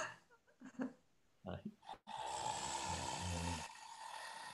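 A man's voice making a low, rasping tiger growl, starting abruptly about two seconds in and lasting a second and a half before trailing off, after a few short breathy vocal sounds.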